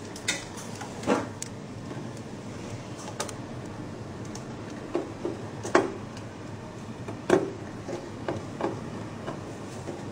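Metal hand tool clicking and tapping against the screws of a press's sensor bracket as they are tightened. The clicks are scattered, with the loudest about a second in and again around six and seven seconds in, over steady background noise.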